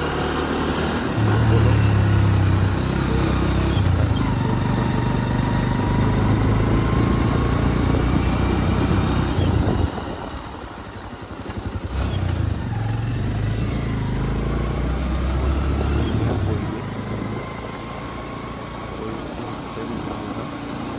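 Motorcycle engine running steadily while under way. The engine note drops away for about two seconds midway, as if the throttle is eased off, then picks up again.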